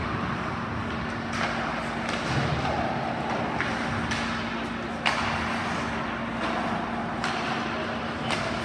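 Ice hockey play in a rink: a steady wash of skates on ice and arena noise with a faint hum, broken by about six sharp clacks of sticks and puck, the loudest about five seconds in.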